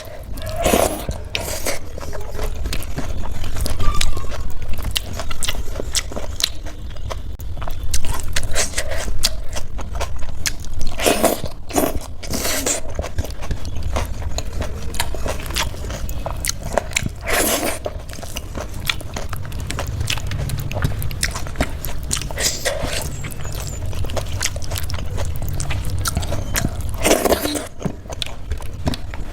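Close-miked eating of a rice and vegetable thali meal: wet chewing and mouth sounds with many small clicks and a few louder smacks scattered through, over a steady low hum.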